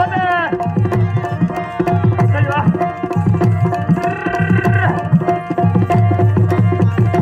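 Live Rajasthani folk music: a hand drum keeps a fast, driving rhythm under a harmonium's steady held notes, while a singer's long phrases bend up and down over them.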